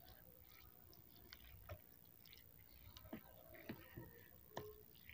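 Wooden spoon and fork tossing saucy instant noodles on a plate: faint wet squishes and a scattering of soft clicks where the wooden utensils touch the plate, a few more of them in the second half.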